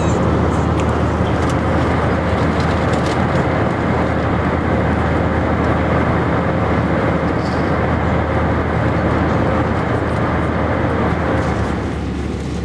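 Steady cabin noise of a jet airliner in cruise: the rush of the turbofan engines and airflow heard from inside the cabin, with a low hum beneath. Near the end it drops a little and turns duller.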